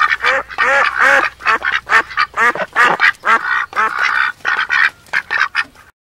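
Greylag goose honking in a rapid series of short, loud calls, several a second, stopping abruptly near the end.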